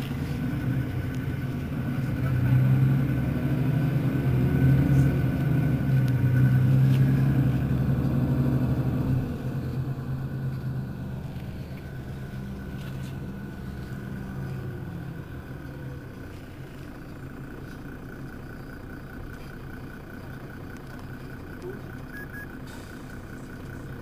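Mercedes-Benz Citaro city bus's diesel engine idling at a stop. It runs louder for the first several seconds, then settles to a quieter steady idle about nine seconds in.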